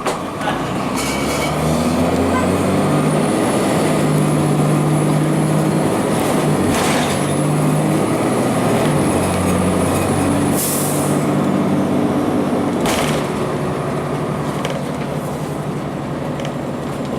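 The Cummins ISC diesel engine of a 2002 Blue Bird CS transit bus, heard from inside the bus as it pulls away and runs. The engine note changes pitch in steps as the Allison automatic shifts gears. A faint high whistle runs over it, with a few short hisses of air.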